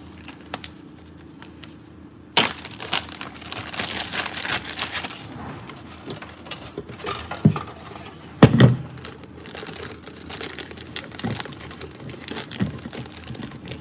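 Plastic zip-top bag crinkling as it is opened and handled. The crinkling is densest from a couple of seconds in to about five seconds in, then softer as the bag is stretched over a plastic holder. Two dull thumps come near the middle, the second the loudest.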